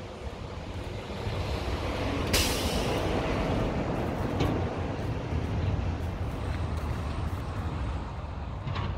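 Steady low outdoor rumble with a sudden loud hiss about two and a half seconds in that fades within about a second.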